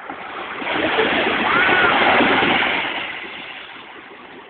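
A small sea wave breaking and washing up the sand at the water's edge: the wash swells over about a second and a half, then fades away.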